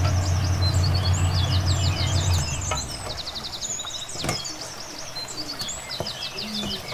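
Small birds chirping in quick repeated trills, with a low steady hum that stops about two and a half seconds in. A wooden spoon stirs thick, cooked grated carrots in an aluminium pot, with a sharp knock about four seconds in and another near the end.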